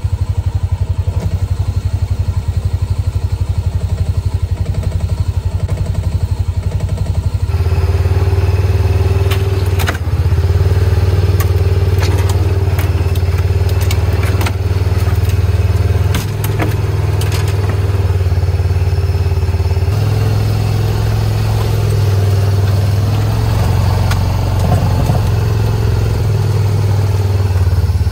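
Side-by-side UTV engine running steadily as it drives over rough woodland ground. Scattered knocks and clatter come from the vehicle, and the engine tone changes abruptly about seven seconds in.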